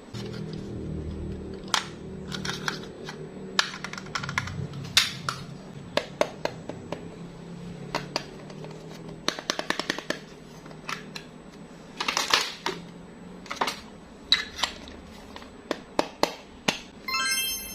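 A small motor hums steadily for most of the time, then stops. Over it, hard candies and plastic click and wrappers crinkle. Near the end there is one short electronic beep, like a toy microwave's.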